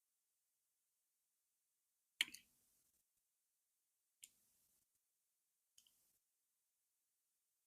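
Faint eating sounds: three short wet clicks about two seconds apart, the first a quick cluster and the loudest, the later two softer.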